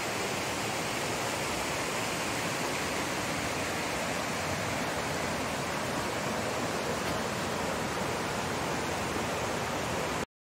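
Shallow rocky stream rushing over stones, a steady hiss of running water that cuts off abruptly near the end.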